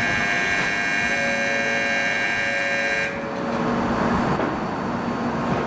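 Platform departure bell ringing steadily at a Shinkansen station, cutting off suddenly about three seconds in. A steady low hum and rumble from the N700-series Shinkansen train at the platform carries on after it.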